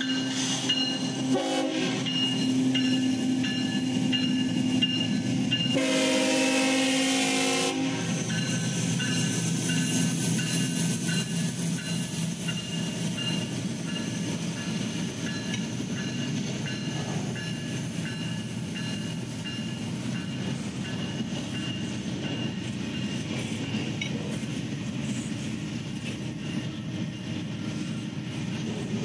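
Freight train passing: the diesel locomotive's engine drone fades away as double-stack intermodal container cars roll by with a steady rumble and wheel clatter. A train horn sounds for about two seconds, around six seconds in.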